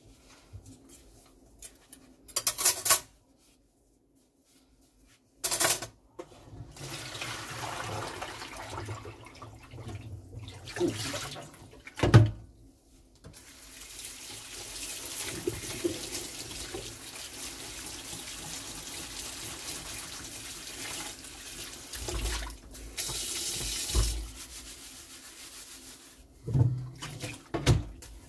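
Tap water running into a stainless steel kitchen sink as dishes are rinsed by hand, starting about six seconds in and stopping near the end, with a short break midway. Ceramic bowls and steel pots clink and knock against the sink a few times, with a clatter of dishes near the start and again near the end.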